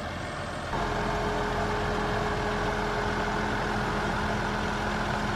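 Military vehicle's engine idling with a steady hum that steps up in level a little under a second in.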